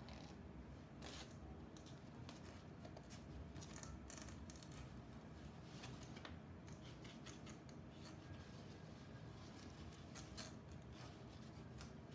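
Faint, scattered dry clicks and rustles of paper or card being handled, as the paper shadow puppets are worked on their rods behind the screen.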